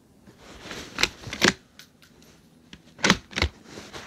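Bolt of a bolt-action target rifle being worked between shots: a pair of sharp clicks about a second in, then another pair about three seconds in.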